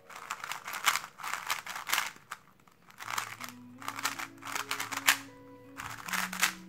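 DaYan ZhanChi Pro M magnetic 3x3 speedcube being turned fast by hand: runs of soft plastic clacking as the layers snap round, quiet and pretty low-pitched, with a short pause about two and a half seconds in.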